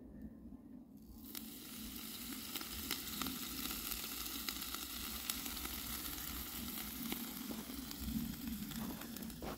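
Whole red snapper sizzling and crackling in a wire grilling basket over a charcoal grill, starting about a second in and holding steady.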